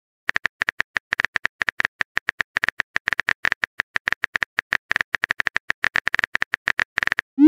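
Simulated phone keyboard typing sound: a rapid run of short, crisp key-tap clicks, several a second, as a text message is typed out letter by letter. Right at the end a short rising swoosh plays as the message is sent.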